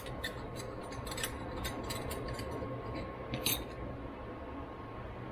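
Light clicks and clinks of small metal carburetor parts being handled and fitted by hand, the sharpest tick about three and a half seconds in.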